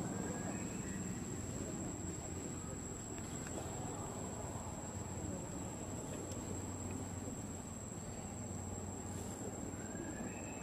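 Steady high-pitched insect drone, one unbroken tone, over a low rumble of background noise. A few faint short chirps come near the start and again near the end.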